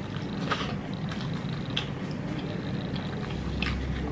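Steady low background rumble with a few faint, short clicks and smacks from a man chewing a mouthful of food.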